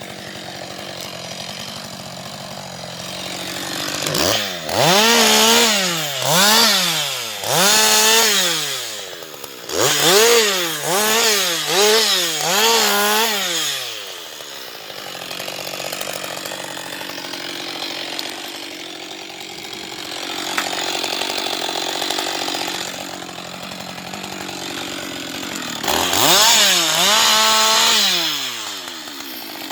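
Husqvarna 560XP two-stroke chainsaw idling, then revved in a quick series of about nine blips of the throttle, each rising and falling. It drops back to idle, then is revved again and held high for a couple of seconds near the end.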